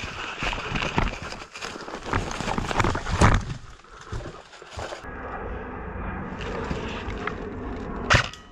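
Footsteps and gear knocking as an airsoft player moves, with a heavy thump about three seconds in. After about five seconds there is a steadier hush, and a single sharp click comes near the end.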